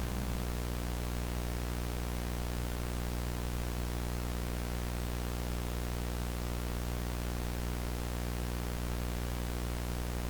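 Steady low electrical hum with a hiss of static over it, unchanging throughout, like dead air on a broadcast channel.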